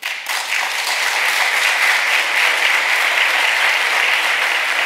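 Audience applauding, breaking out abruptly and keeping up steadily.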